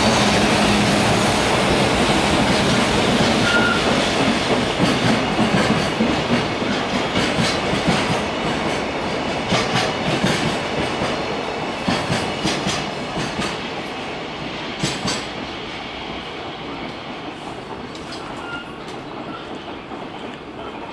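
A freight train of mostly empty container flat wagons hauled by an EF210 electric locomotive rolls past at speed, with a steady rumble and the clickety-clack of wheels knocking over rail joints. The sound fades steadily as the train moves away.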